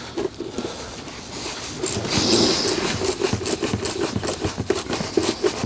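A run of quick clicks, knocks and scrapes from parts and hose clamps being handled and fitted back on under the hood, with a short hiss about two seconds in.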